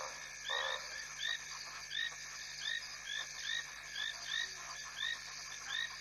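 A small bird calling noisily: short, rising-then-falling notes repeated steadily, one or two a second, with a couple of lower, rougher notes in the first second.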